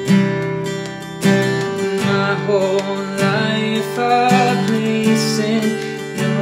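Acoustic guitar strumming chords of a worship song, with loud strums at the start and about a second in. From about two seconds in, a wavering wordless vocal line sounds over the ringing chords.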